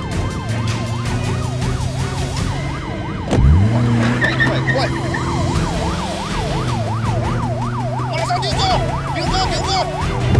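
Police car siren in a fast yelp, sweeping up and down about twice a second, over a car engine running. About three seconds in, an engine revs up sharply and the sound grows louder.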